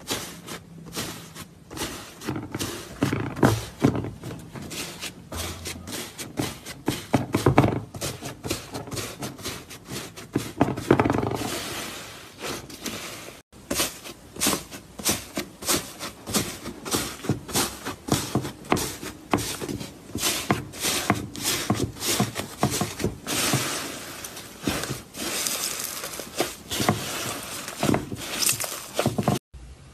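Fingers pressing and kneading crunchy slime with a dried, crusty top: the crust cracks and the slime crackles and pops in quick, uneven clicks. There is a short break near the middle.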